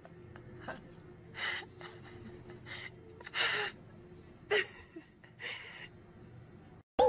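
About five short, breathy gasps or sniffs spaced through a few seconds, over a faint steady hum of room tone.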